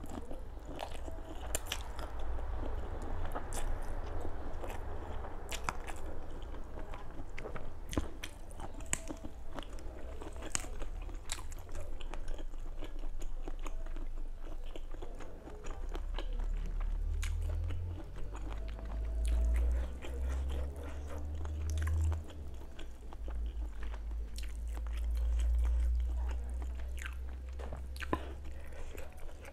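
Close-miked mouth sounds of a person chewing and biting spicy rice-noodle salad with shrimp and lettuce: crisp crunches and wet clicks throughout, over a deep rumble that swells from about halfway through to near the end.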